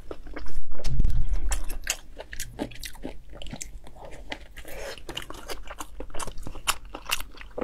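Close-miked chewing of sticky black rice sausage: a quick run of wet mouth clicks and smacks, with a fresh bite about halfway through.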